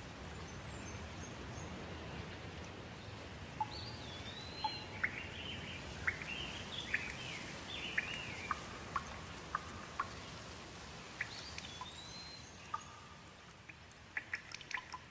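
Steady rain with birds chirping over it, a run of short rising and falling notes through the middle. Near the end the rain thins and sharp drip-like ticks take over.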